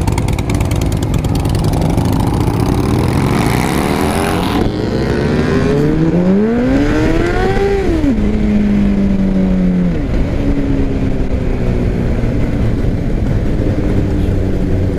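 Harley-Davidson Sportster V-twin engine being revved: its pitch climbs and drops back twice, with the second rev the highest, then it settles back to idle.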